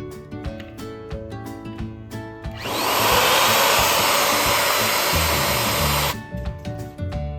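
Electric balloon pump running steadily for about three and a half seconds, starting a little under three seconds in, filling a balloon with air. Background music with separate plucked notes plays before and after it.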